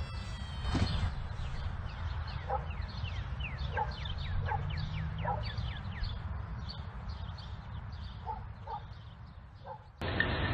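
Animal-like chirping: a run of short high calls, each falling sharply in pitch, a few a second, with fainter paired squeaks lower down, over a low hum. The sound changes abruptly near the end.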